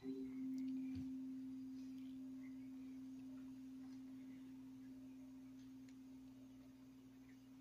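A bell struck once, ringing a single clear tone that fades slowly. It is rung in remembrance after a name of the dead is read.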